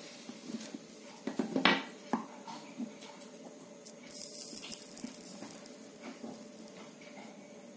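Small clicks and taps of wire and soldering iron handled against the metal terminals of a hot air gun's heating element, with a cluster of sharper knocks about a second and a half in and a brief hiss about four seconds in.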